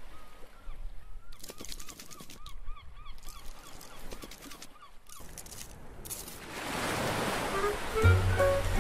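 Cartoon sound effects for an animated crab: a rapid run of short squeaky chirps with bursts of clicking. About six seconds in, a wave-wash sound swells as a rush of noise, and a music jingle starts near the end.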